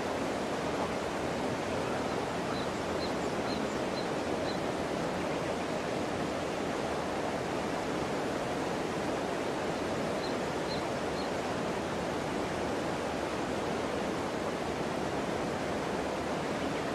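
Steady rushing of a shallow river flowing over stones. A few faint high pips come in two short runs, early on and again about ten seconds in.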